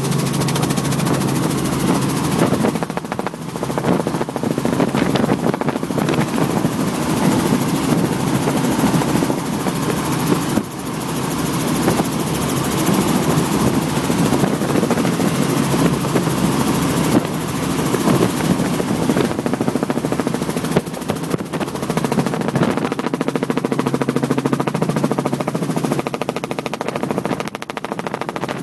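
Small helicopter in low flight, heard from inside the cockpit: engine and rotor running steadily with a fast pulsing chop from the blades.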